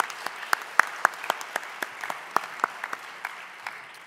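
Audience applauding: a dense patter of clapping with a few loud, close claps standing out, tapering off near the end.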